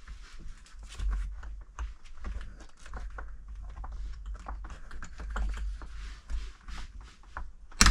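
Irregular small clicks and rattles of a window blind being handled and fitted into its mounting brackets, ending with one sharp snap near the end as it clicks into place.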